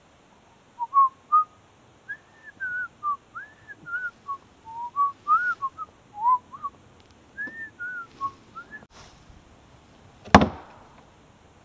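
A man whistling a wandering tune of short gliding notes for about eight seconds. About ten seconds in comes one sharp, loud knock as the wooden lid of an open-air box privy drops shut.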